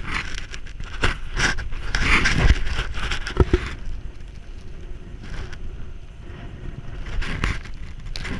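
Mountain bike riding on asphalt as picked up by a bike-mounted camera: wind on the microphone with tyre and frame rattle, rougher in the first half with a couple of knocks about three and a half seconds in, then easier.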